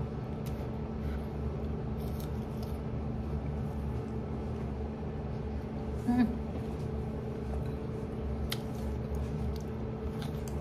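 Faint crackles and clicks of a crisp, freshly fried samosa being broken apart and chewed, over a steady hum of kitchen machinery. A brief murmur from the eater about six seconds in.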